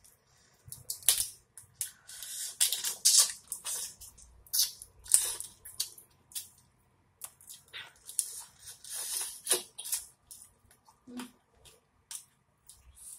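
Boiled lobster tail shell being cracked and pried apart by hand, giving irregular bursts of crackling and wet squishing as the meat is pulled free, mixed with eating sounds.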